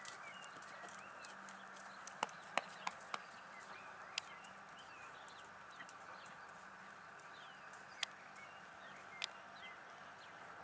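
Faint open-air background with small birds chirping and a few scattered sharp clicks and knocks, a cluster of them about two seconds in.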